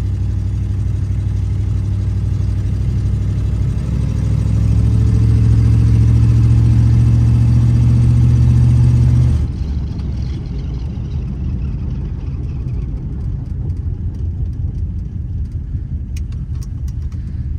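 1957 Ford Fairlane 500's 292 Y-block V8 heard from inside the cabin while driving, rising in pitch and level about four seconds in, then dropping off abruptly at about nine seconds to a lower drone. The engine is still cold, which the owner takes as the reason it runs this way, along with a likely need for tuning.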